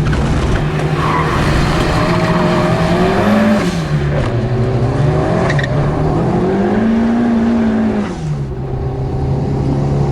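Turbocharged 1200 four-cylinder engine of a modified Fiat 600 being driven hard on track. The engine note rises and falls with throttle and gear changes, climbing to a held higher pitch past the middle, then dropping sharply near the end.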